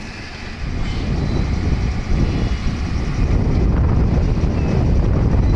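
Excavator's diesel engine running with a loud, steady low rumble that builds up over the first second.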